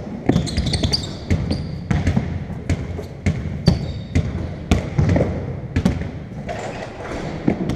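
Basketball bouncing on a wooden court in irregular thuds, one to two a second, with a few short high squeaks of sneakers on the floor about a second in and near four seconds in.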